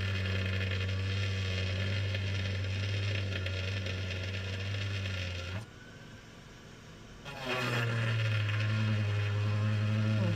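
Small handheld power tool, like a drill, running at the windshield chip to clean out the crushed glass where the rock hit. It hums steadily, stops about halfway through, then starts again a couple of seconds later.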